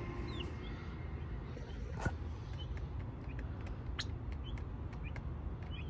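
Young chicks peeping faintly in short, scattered chirps, with a few sharp clicks, the loudest about two seconds in, over a steady low background rumble.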